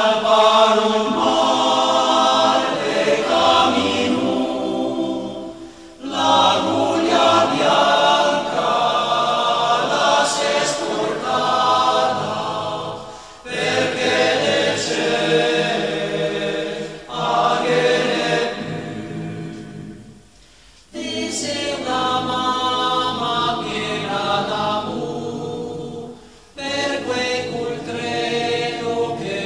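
A choir singing a song in Italian, in phrases separated by short pauses.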